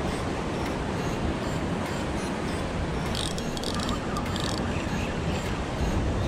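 Steady rush of sea surf breaking against rocks, mixed with wind on the microphone. A short run of light clicks comes about three seconds in.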